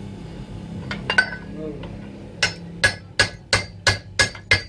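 Hammer blows on steel: a couple of light metallic clinks, then from about halfway through a steady run of sharp, ringing strikes about three a second, part of the hands-on work on a vehicle alternator at a workbench.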